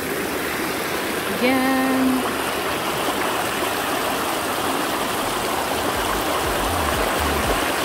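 Shallow river rushing steadily over rocks and riffles, a constant hiss of moving water. A low rumble comes in near the end.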